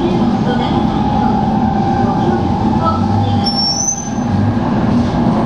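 Cabin noise inside a Tokaido Shinkansen Nozomi running at speed: a steady rumble of wheels and air, with a brief high squeal about three and a half seconds in.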